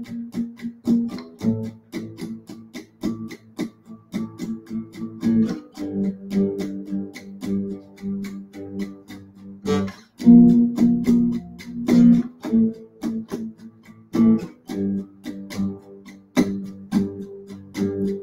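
Two acoustic guitars playing an instrumental passage of quick plucked notes and chords, with a short break about halfway through before coming back in with a strong chord.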